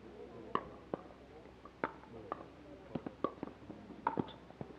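Pickleball paddles striking the hard plastic ball in a rally: a quick series of sharp pops, some about half a second apart.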